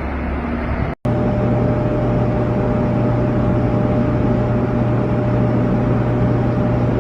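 A vehicle engine running steadily, with a low hum and a faint held whine. About a second in, the sound drops out briefly at a cut and comes back at the same level.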